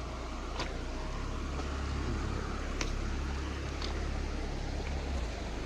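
Steady rushing of high creek water under a deep, low rumble that stops abruptly about five seconds in, with a few light ticks.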